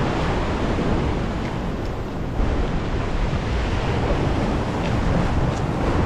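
Ocean surf breaking and washing against a rock ledge, with wind rumbling on the microphone.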